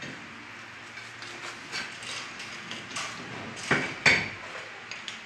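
Scattered knocks, clinks and scrapes of granite countertop slabs being handled and set down, with two louder sharp clacks close together about four seconds in.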